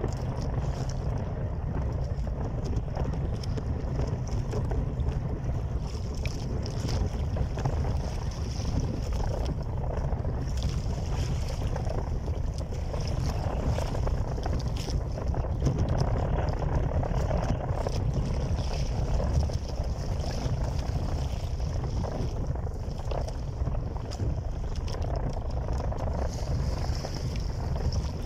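Steady wind noise buffeting the microphone on a small boat at sea, a low rumble without breaks.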